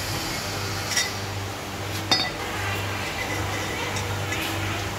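Metal clinks of a socket and hand bar working the lug nuts of a Ford Everest's alloy wheel, which are being loosened by hand rather than with an impact gun. There are two sharp clinks about one and two seconds in and a fainter one near the end, over a steady low hum.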